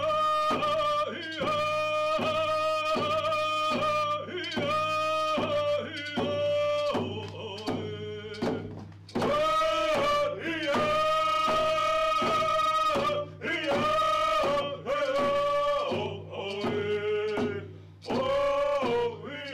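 Background music: a high melody of long held notes, each lasting about a second with short breaks between them, over a steady low drone.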